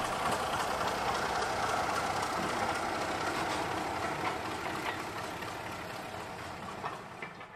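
Diesel locomotive engine running as the train moves past, steady at first and fading away over the last couple of seconds.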